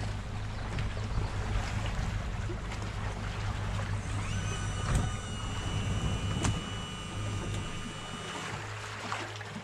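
Boat's outboard motor running slowly, a steady low hum under water and wind noise. A thin high whine rises in about four seconds in and holds. The hum drops away near the end as the boat eases in.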